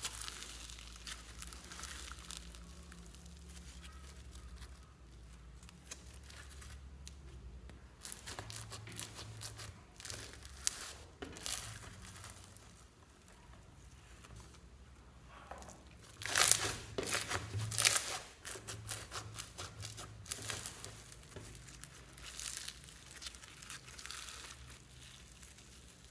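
Floam slime, clear slime packed with white foam beads, being squeezed and stretched by hand: dense small crackles in irregular bursts, loudest about two-thirds of the way through.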